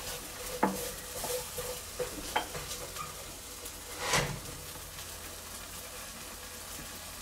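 A few sharp clicks, about half a second and two and a half seconds in, and a louder scuffing knock about four seconds in, from hands pressing the buttons of a Nespresso capsule machine and a Bluetti EB3A portable power station, over a steady hiss. The machine does not start: the power station trips out straight away.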